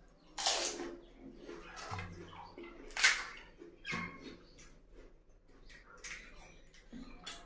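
Close-up mouth sounds of a person eating pani puri: the crisp fried puri shells filled with spiced water being bitten, crunched and slurped, wet and noisy. Loud bites or slurps come about half a second in and, loudest, about three seconds in, with smaller ones later.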